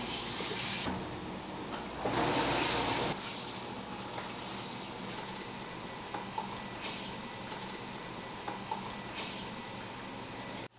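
Kitchen background with a steady low hum, light clicks and taps of food and utensils being handled, and a hissing burst lasting about a second, two seconds in.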